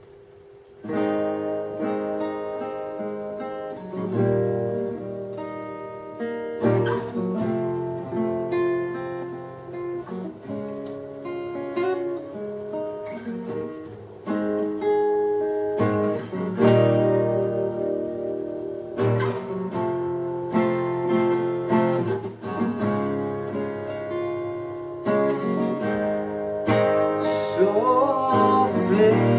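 Acoustic guitar playing a chord-based song intro, starting about a second in. A man's singing voice comes in near the end.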